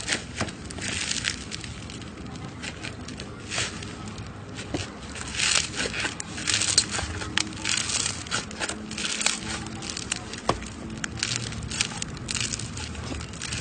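Slime being played with, giving irregular crackling and clicking, in short clustered bursts.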